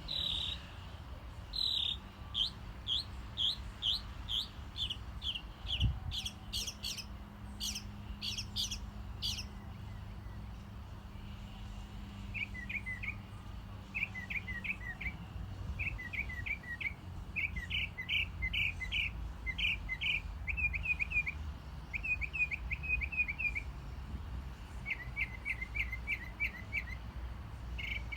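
A songbird singing: a string of clear, high, down-slurred whistled notes at about two a second, then, from about twelve seconds in, short rapid trilled phrases repeated over and over with brief pauses between them.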